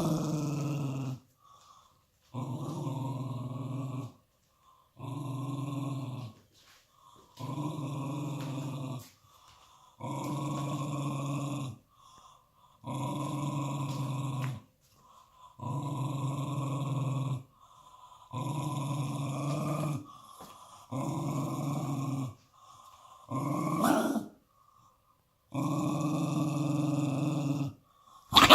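Dog growling in a run of about ten long, steady growls, each a second and a half to two seconds long with short pauses between them, followed by a brief, sharper and louder sound at the very end.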